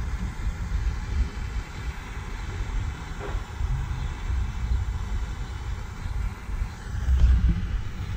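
Uneven low wind rumble on the microphone, swelling near the end, over a faint steady hiss from a small butane pen torch heating a heat-shrink butt connector.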